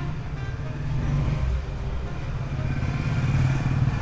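A motor vehicle engine running steadily at low revs, getting louder near the end.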